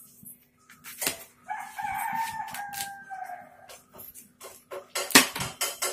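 A rooster crows once, a single held call of about two seconds starting about a second and a half in and dropping a little at the end. Around it come knife strokes through a cucumber onto a cutting board: one knock just before the crow and a quick run of knocks near the end, the loudest sound here.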